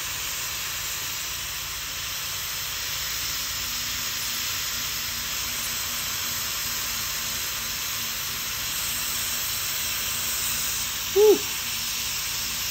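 Hot-air plastic welding gun blowing a steady hiss of hot air with a faint motor hum, its nozzle held on the plastic of a fan shroud to melt it. One brief pitched sound, the loudest moment, comes about eleven seconds in.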